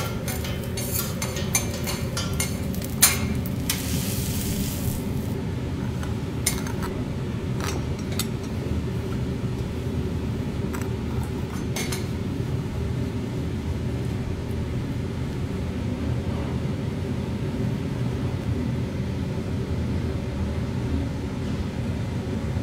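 A metal spoon clinks and scrapes against ceramic bowls and a stone plate several times, mostly in the first dozen seconds. A short hiss comes about three to five seconds in. A steady low hum runs underneath.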